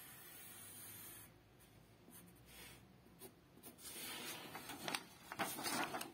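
Pencil scratching as it draws lines on a sheet of paper, then the paper rustling as the sheet is picked up and handled in the last couple of seconds.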